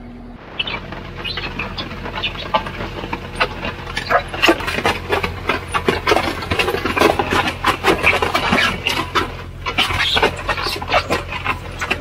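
Skid-steer concrete mixer attachment churning a dry sand, gravel and cement mix: a dense, irregular rattling and scraping of grit against the steel drum that grows louder about four seconds in, over the steady hum of the skid steer's engine.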